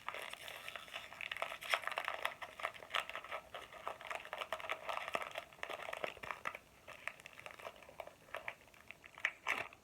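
Crinkling and rustling of a trading-card booster pack being torn open and its cards handled: dense crackling for most of the time, thinning out near the end.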